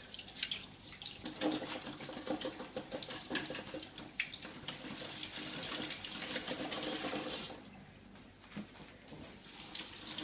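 Kitchen tap running over a freshly microwaved hard-boiled egg held in the stream to cool it. The water is shut off about three-quarters of the way through.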